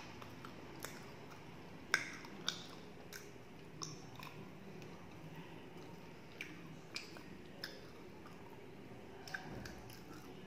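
A person chewing a mouthful of rice close to the microphone, with wet mouth clicks and lip smacks at irregular intervals, the sharpest about two seconds in.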